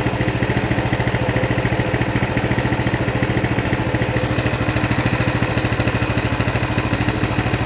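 Coleman CT200 mini bike's small single-cylinder engine idling steadily at about 1600 rpm, with an even, rapid firing beat. It idles low with the throttle return spring off, since that spring was holding the throttle partly open and making the idle too high.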